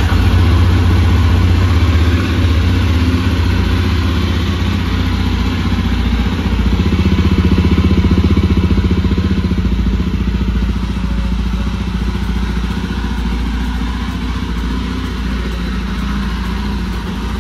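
Jawa 42 Bobber's single-cylinder engine idling steadily just after a cold start, the bike having stood unridden for six months.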